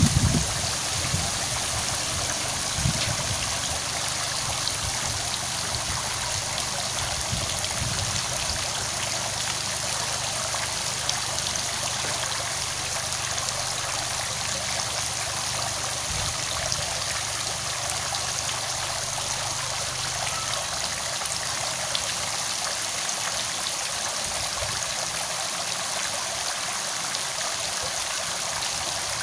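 Steady rush of flowing water, with a few soft low bumps in the first few seconds.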